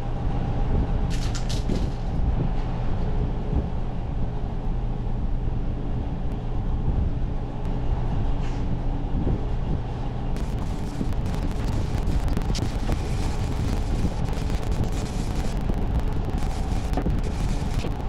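A machine running steadily with a low droning hum. From about ten seconds in it is joined by a crackling noise.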